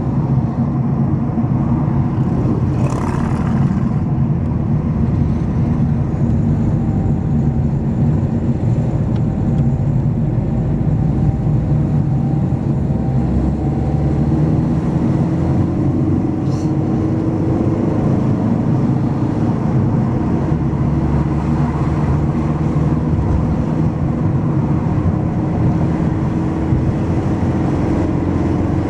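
A car's engine and tyre noise while climbing a mountain road, the engine note drifting up and down. About three seconds in, an oncoming car rushes past.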